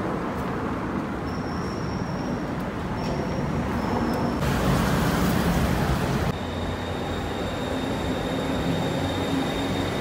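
City traffic noise in short edited pieces: road traffic running, then a BTS Skytrain train at an elevated station platform. In the last part a steady high whine sits over the rumble.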